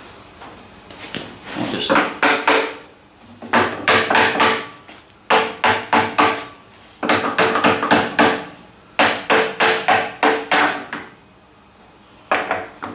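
Hammer striking the metal tool head of a metal shaper in quick runs of about five to seven ringing taps, five runs with short pauses between them, and one more tap near the end, knocking the head assembly loose from its mounting.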